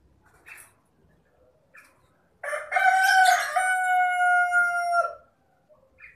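A rooster crows once, about two and a half seconds long: a rough start that settles into a long held note, dropping slightly just before it cuts off. A few short, faint sounds come before the crow.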